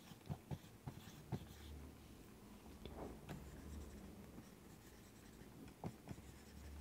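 Marker writing on a whiteboard: faint, scattered taps and scratches of the pen strokes.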